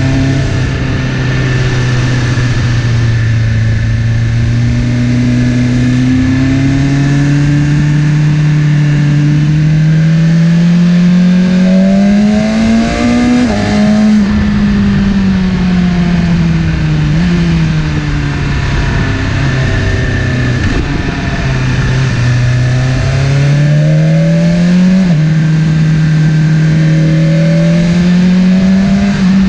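BMW S1000RR's inline-four engine heard on board while riding. The engine note climbs steadily under acceleration and drops sharply about halfway through. It then sinks and climbs again with a few quick steps in pitch, over constant wind rush.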